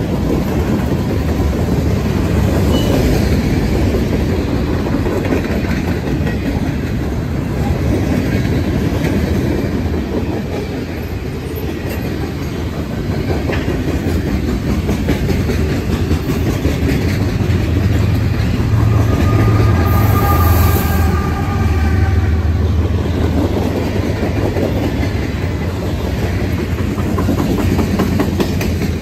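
Freight train's boxcars and tank cars rolling past close by, steel wheels clicking over the rail joints in a steady clickety-clack. A brief wavering wheel squeal comes about two-thirds of the way through.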